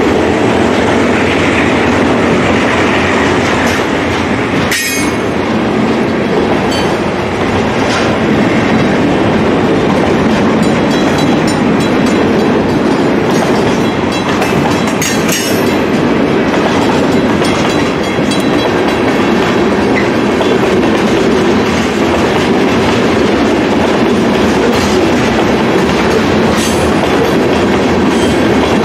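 Freight cars rolling past close by: a steady rumble of steel wheels on the rail with clickety-clack over the rail joints, and a few sharp knocks, one about five seconds in and another near the middle.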